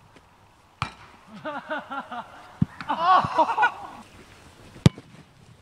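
Football struck with the foot on a grass pitch: two sharp thuds, about a second in and again near the end. Between them, boys' voices call out.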